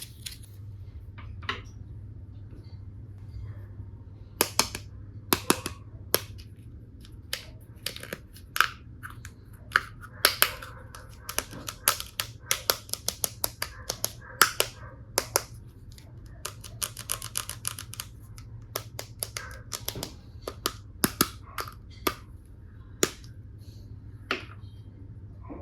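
Small plastic toy tool pieces clicking and clacking as they are handled and fitted together: irregular sharp clicks, some single and some in quick runs.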